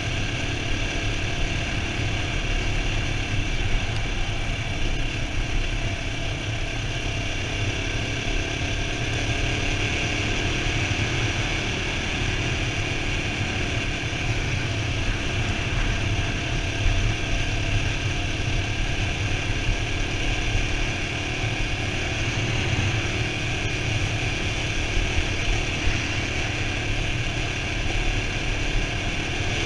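CSC RX3 Cyclone's 250 cc single-cylinder engine running at a steady cruising pace, with wind rushing over the helmet-mounted microphone.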